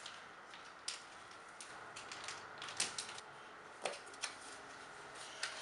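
Light, irregular taps and clicks of small picture cards being handled and set down on a plastic binder on a tabletop.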